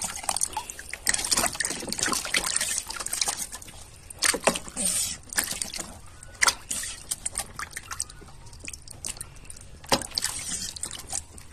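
Water splashing and sloshing in a plastic tub as a bird stabs its beak and neck in after small fish, with irregular small splashes and drips and a few louder splashes.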